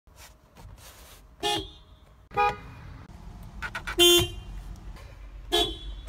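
Toyota car horns, heard from inside the cabin, sounding four short honks as the steering-wheel horn pad is pressed. The third honk, about four seconds in, is the loudest and longest.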